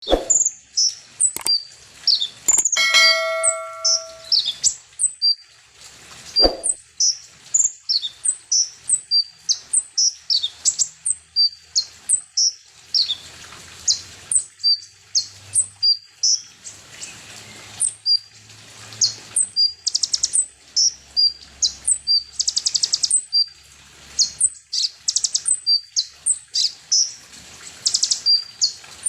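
Konin (kolibri ninja) sunbird singing: short, high, sharp chirps repeated about twice a second, broken by quick trills. A brief ringing tone sounds about three seconds in.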